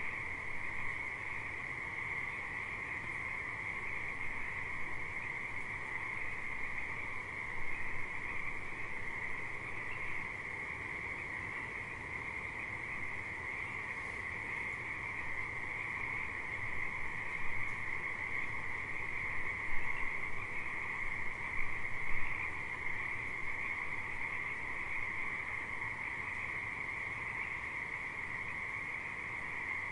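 A chorus of frogs calling together, a dense, steady trilling, with a few louder calls standing out near the middle.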